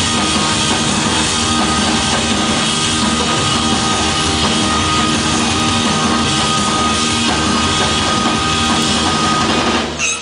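Loud live electronic rock played by a band: a dense wall of synthesizers over drums, with held droning tones. The music cuts off suddenly at the end as the song finishes.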